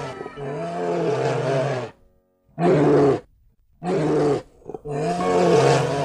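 A bear's low vocal calls, four in a row separated by short silences, the first the longest.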